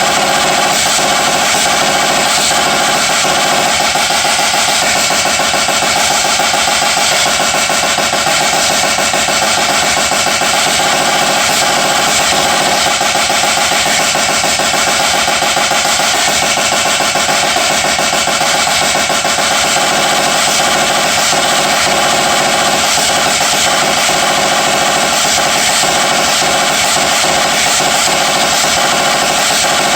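Drum kit played in a fast, dense solo, rapid strokes running together at a loud, unchanging level.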